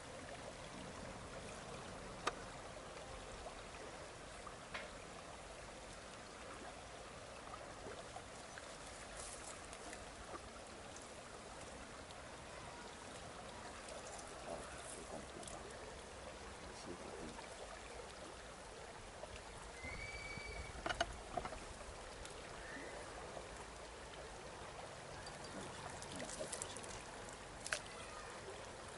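Faint, steady rush of flowing water, with a few scattered sharp clicks and taps.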